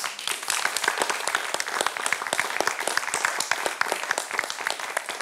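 Audience applauding: many hands clapping at once, a dense, even patter.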